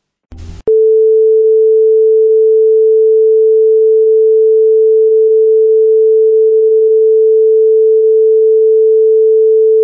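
A brief burst of hiss, then a test-card tone: one pure, steady, mid-pitched beep held unbroken, starting under a second in.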